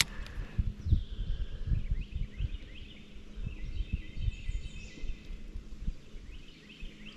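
Spinning reel being cranked to reel in a small rock bass, with irregular low thumps of handling on the microphone and birds chirping in the middle of the stretch.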